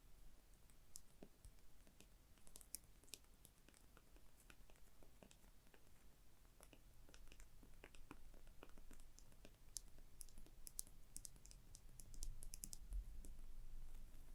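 Faint, light fingertip and fingernail tapping on small objects: irregular crisp clicks, sparse at first and coming quickly in a cluster near the end.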